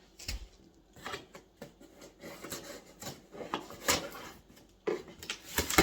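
Items and packaging being handled while a cardboard shipping box is unpacked: irregular knocks, taps and rubbing.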